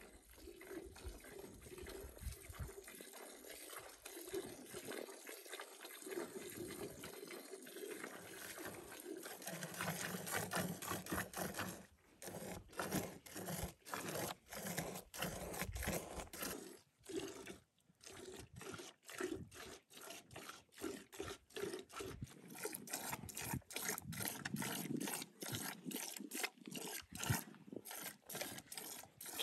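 Cow being milked by hand: after about ten seconds of steady background noise, short squirts of milk hit the frothy milk in a galvanized metal bucket in a steady rhythm of about two or three a second.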